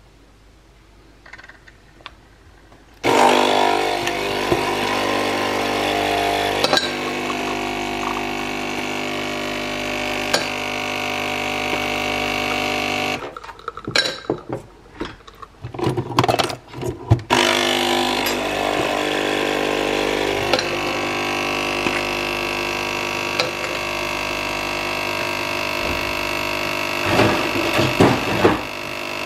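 A capsule espresso machine's pump buzzes steadily as it brews a shot of espresso. It runs in two long stretches, with a few seconds of clicks and knocks between them.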